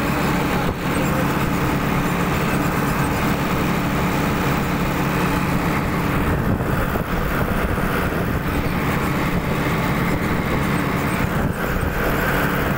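Mahindra Arjun tractor's diesel engine running at a steady pitch as the tractor drives along, heard close up from the driver's seat beside the upright exhaust stack.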